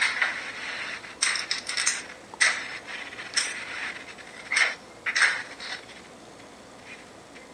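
A string of short, irregular scraping and rustling noises for about six seconds, then quiet hiss, heard through a video call's compressed audio.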